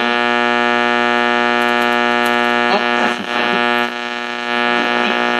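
Philco AM push-button car radio for a 1968–71 Ford Mustang playing through its speaker: a loud, steady buzzing hum covers the reception. Brief fragments of a broadcast voice come through about three seconds in.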